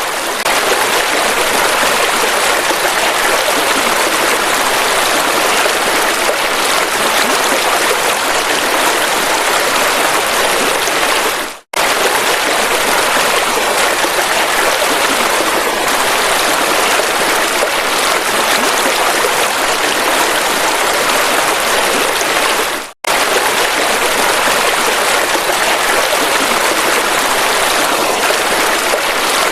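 River water rushing and splashing steadily. Twice, about 12 and 23 seconds in, it dips and cuts out for an instant before coming straight back.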